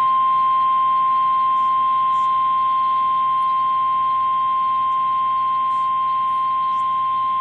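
NOAA Weather Radio 1050 Hz warning alarm tone: one steady, loud, unbroken high tone, the signal that a severe weather warning is about to be read.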